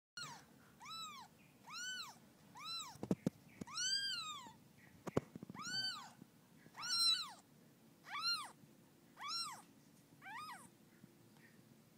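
Newborn kitten mewing about ten times, roughly once a second, in high-pitched calls that each rise and fall in pitch; the calls stop a little before the end. Two sharp clicks come between the calls.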